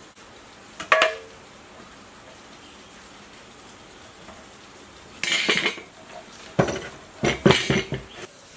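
Hard clinks and rattles of tools and parts on a small engine as its red recoil-starter shroud is fitted and fastened down. A single sharp clink with a short ring comes about a second in. Two bursts of rattling and scraping follow, from about five seconds in and again near the end.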